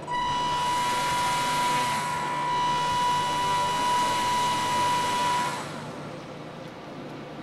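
Motor and air propeller of a radio-controlled plane converted into an airboat, running at speed with a steady high-pitched whine. It starts abruptly and cuts off after about five and a half seconds.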